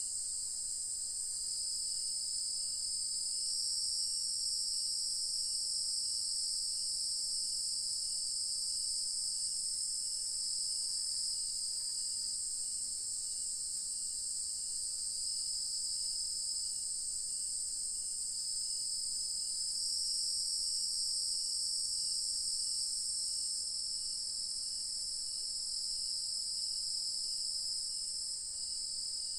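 Chorus of crickets and other night insects: a steady, high-pitched trilling in several overlapping layers that swell and fade over several seconds, with a faint, evenly repeating chirp underneath.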